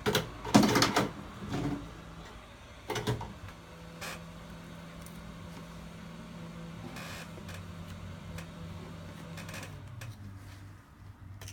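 Knocks, clicks and clatter of a phone and hand tools being handled on a work surface as the glued back glass of a Samsung Galaxy is pried loose, loudest in the first second. A faint low hum runs underneath through the middle.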